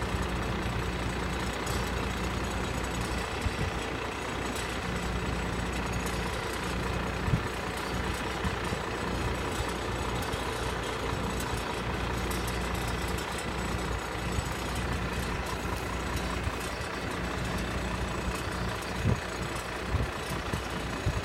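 Case A7000 sugarcane harvester's diesel engine running steadily, with a few short thumps about seven seconds in and again near the end.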